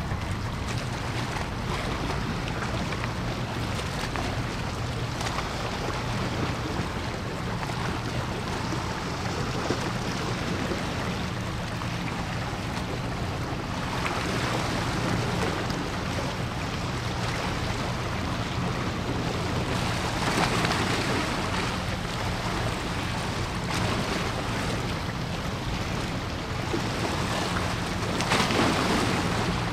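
Steady low drone of a large cruise ship's engines heard across open water, under a haze of wind and water noise that swells three times, the strongest near the end.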